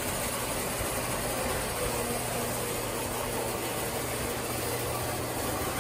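1934 Lionel work train running on toy train track: a steady whir and rumble of its electric motor and wheels, with a low hum underneath.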